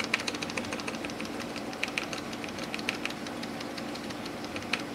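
Computer keyboard keys tapped over and over, a quick run of clicks at first and then scattered single presses, as keys are pressed at boot to get into the BIOS setup. A steady low hum runs underneath.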